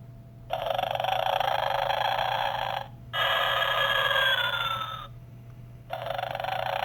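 Animated Santa figure's built-in snoring sound effect playing: three rasping snores of about two seconds each, with short gaps between them. The middle one ends in a falling whistle, like a snore breathed out through the lips.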